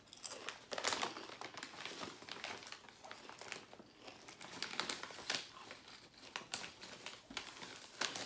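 Plastic snack-chip bag of Plentils lentil chips crinkling and crackling in irregular handfuls as it is handled and reached into.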